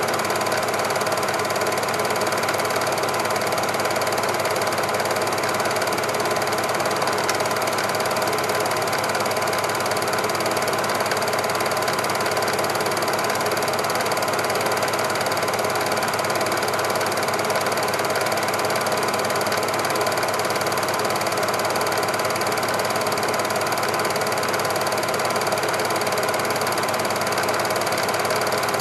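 Super 8 film projector running: a steady mechanical whir and rattle of the film transport, unchanging throughout.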